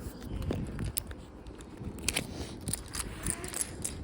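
Plastic Lego pieces being handled, a scattered run of small clicks and rattles.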